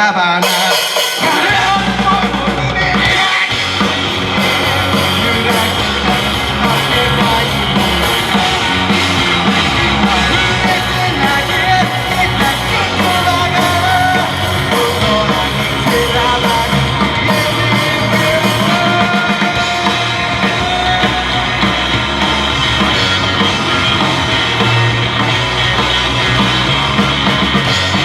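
Live rock band playing: drum kit, bass and guitars, with the full band coming in about a second in.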